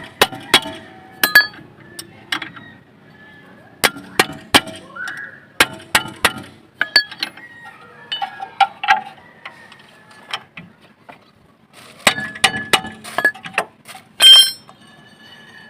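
Metal hand tools clinking and knocking on the brake caliper and its bolts as the caliper bolts are tightened. It is an irregular string of sharp metallic clicks and clinks, some of them ringing briefly, with the loudest clank near the end.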